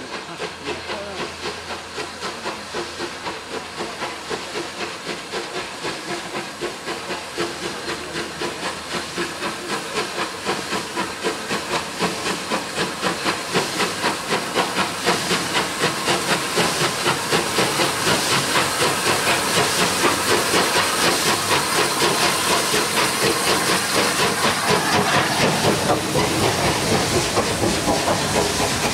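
Steam locomotive working hard as it hauls a passenger train up towards the listener, its exhaust beats coming in a fast, even chuff that grows steadily louder as it nears, then holds at its loudest as the engine passes close by.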